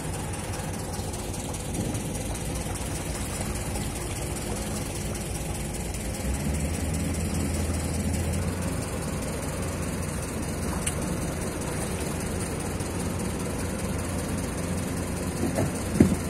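A motor engine running steadily at low revs, with its deep hum growing stronger for a few seconds about six seconds in.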